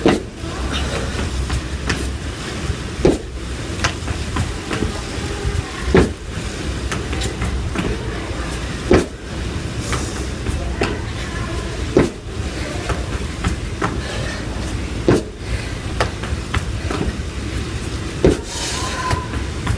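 Feet landing on a tiled rooftop floor in repeated long jumps, a sharp thump about every three seconds, over steady background noise with a low rumble.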